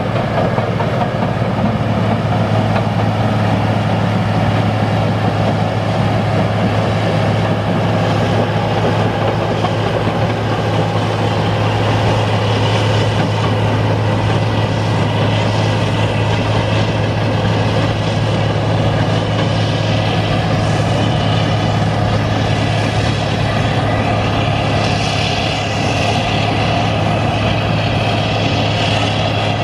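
Diesel engine of an International Harvester TD40-B crawler bulldozer running steadily under load as it tracks through a shallow river and pushes gravel with its blade. A constant low hum carries through, with some rattling clatter above it in the second half.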